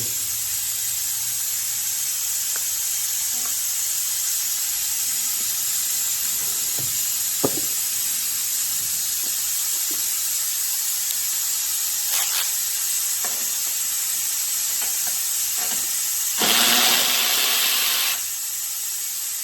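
Steady hiss from the fuel being drawn out of a walk-behind mower's tank, with a few small clicks and knocks of tools as the spark plug is removed. About sixteen seconds in, a louder burst of hiss lasts about a second and a half.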